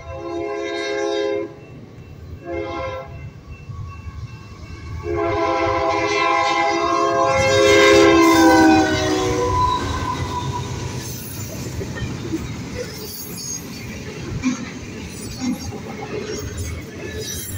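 Union Pacific diesel locomotive's air horn sounding at a grade crossing: a long blast, a short one, then a long, loud blast whose pitch drops as the locomotive passes about eight seconds in. After that comes the low rumble and clicking wheels of double-stack intermodal cars rolling past.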